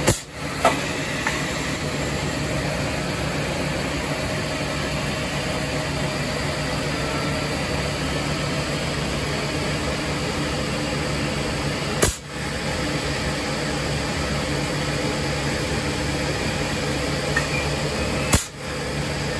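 Steady mechanical drone of boiler-plant machinery with a constant low hum. It is broken by sharp clicks twice near the start and again about 12 and 18 seconds in, each followed by a brief drop in the drone.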